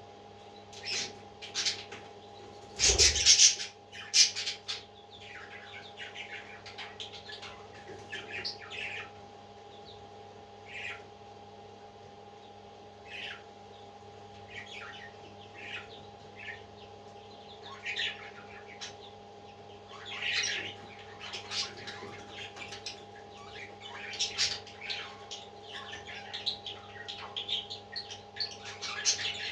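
Parrot chicks chirping and squawking in short, high calls scattered throughout, with the loudest burst about three seconds in, over a steady low hum.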